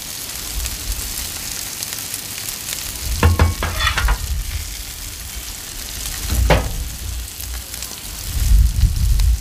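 Burger patties, buns and potatoes sizzling on a Blackstone flat-top griddle, a steady hiss. Low rumbles and a few short, sharper sounds come in about three to four seconds in and again around six and a half seconds.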